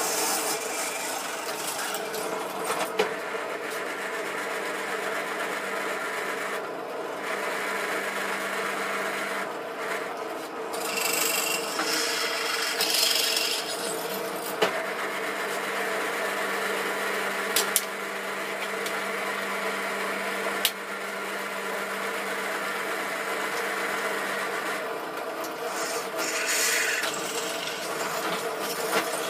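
Drill press running with a steady motor hum while its bit cuts into a workpiece, with harsher grinding spells about eleven and twenty-six seconds in and a few sharp clicks.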